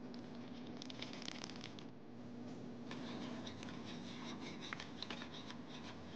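A wire whisk stirring a thin milk-and-egg mixture in a ceramic bowl: faint, quick scraping and ticking of the wires against the bowl, over a faint steady hum.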